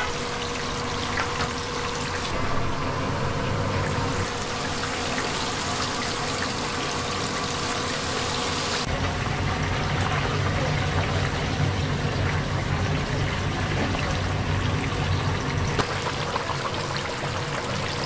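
Battered whole chickens deep-frying in a large cauldron of hot oil: a steady, dense sizzling and bubbling.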